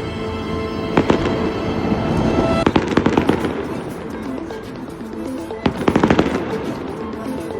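Fireworks going off: a sharp bang about a second in, then rapid crackling volleys around three seconds and again around six seconds, with music playing underneath.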